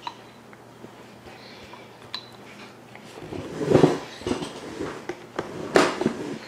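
Feeding spoon scraping and clinking against a dish, with a few small clicks first and two louder bouts about halfway through and near the end.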